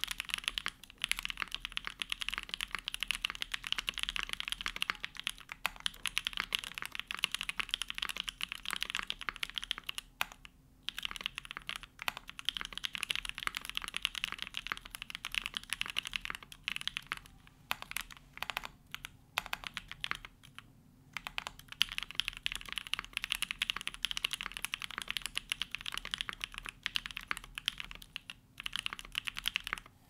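Continuous fast typing on a TKD Cycle7 mechanical keyboard built with hand-lubed Gateron Cream Soda linear switches, a carbon fibre plate, case foam and GMK Grand Prix keycaps: a dense stream of keystroke clacks, broken by a few short pauses.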